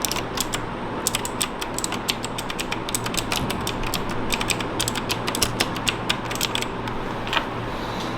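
Keys of a mechanical keyboard being typed: quick, irregular runs of sharp clicks and clacks, thinning out after about six seconds to a single click near the end, over a steady low hum.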